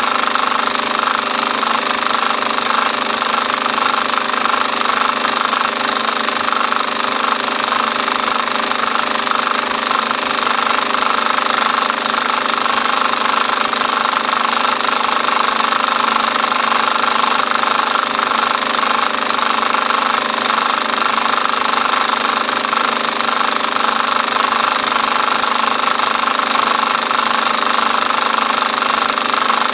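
Film projector running with a steady mechanical clatter that never changes. It is the only sound: the old film itself is silent.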